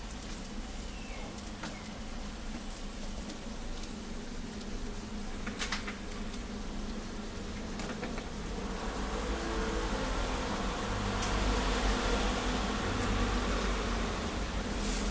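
A steady buzzing drone from the griddle stall's equipment, with a frying hiss that grows louder about two-thirds of the way in. There are a couple of light clicks in the middle.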